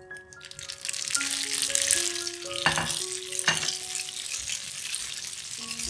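Flat rice noodles sizzling in hot oil in a nonstick frying pan as they are stir-fried with a spatula, with two sharp clacks about halfway through. Soft background music with held notes plays underneath.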